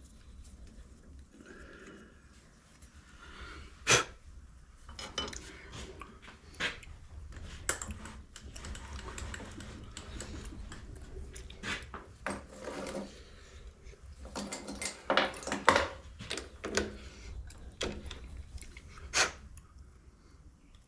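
Metal hand tools and parts clinking and knocking in a series of irregular sharp clicks while threads are being tapped into a brass fitting with a 5/16-24 tap. The loudest knocks come about four seconds in and in a cluster around fifteen to sixteen seconds.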